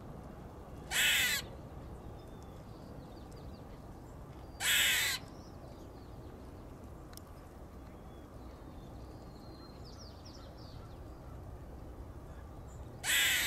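Eastern gray squirrel giving harsh, raspy alarm calls, three times, each about half a second long, well spaced.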